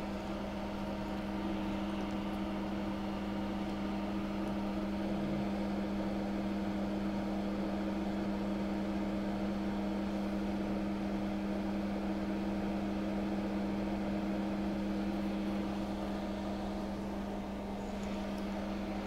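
Steady machine hum, a low drone with a fan-like hiss, holding the same level throughout.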